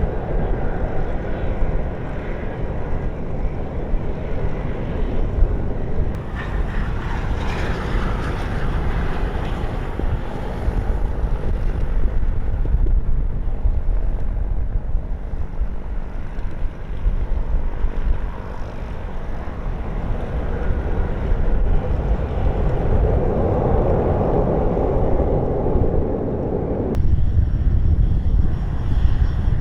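Strong wind rumbling on the microphone, over the engine noise of aircraft at the airport, which swells and fades. The sound changes abruptly about six seconds in and again near the end.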